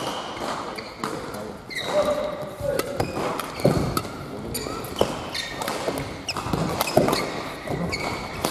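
Badminton rally: sharp racket hits on the shuttlecock every second or so, with court shoes squeaking on the hall floor and footsteps thudding between strokes.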